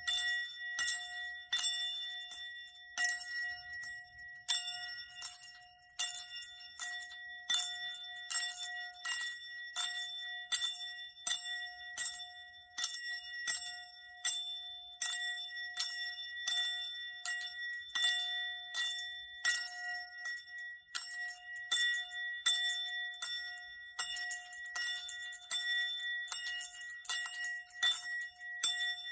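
A bell struck over and over, roughly once a second, each strike with a bright jingling attack and a ring that holds one steady pitch between strikes.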